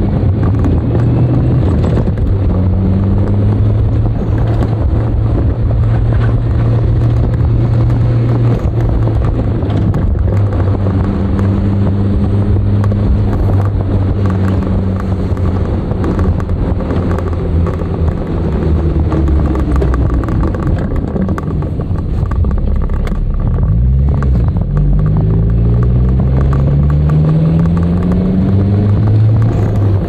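Nissan Skyline DR30 RS Turbo's FJ20ET turbocharged 2.0-litre four-cylinder engine driving the car along. Its note holds steady for long stretches, drops away a little past two-thirds of the way through, then climbs steadily for several seconds as it revs up under acceleration.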